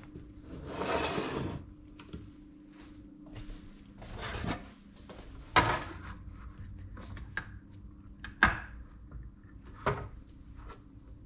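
Kitchen handling sounds: a frying pan scraping briefly across a glass-top hob, then a ring-pull tin can worked by gloved hands, giving several sharp metallic clicks as the pull ring is levered up.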